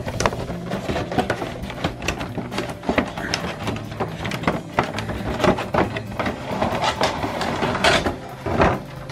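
Cardboard box and clear plastic packaging being handled: rustling, crinkling and clicking as the plastic insert is worked out of the box, busiest and loudest near the end.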